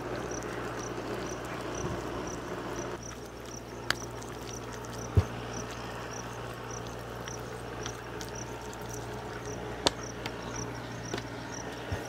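Faint, steady low drone of a tractor ploughing a flooded paddy field, with an insect chirping high and evenly about three times every two seconds over it. A few sharp clicks break in, the loudest about five seconds in.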